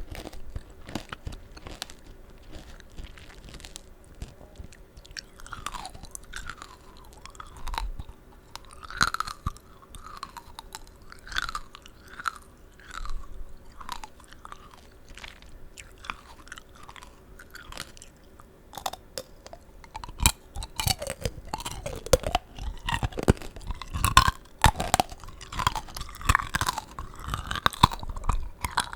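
Close-miked crunching of the hard sugar-candy shell on tanghulu, candied strawberries and grapes, with sharp cracks mixed with wet, juicy chewing of the fruit. The crunching grows louder and denser about two-thirds of the way through.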